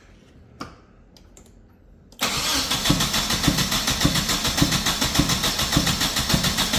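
Nissan 240SX engine cranking over on its starter motor for a compression test, without firing. It comes in suddenly about two seconds in as a steady starter whir with even compression pulses about three times a second, and stops near the end.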